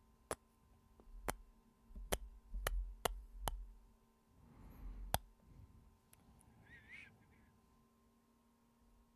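Close-microphone ASMR kissing: a run of about seven sharp lip smacks over the first five seconds, with a breath near the end of the run, then quiet.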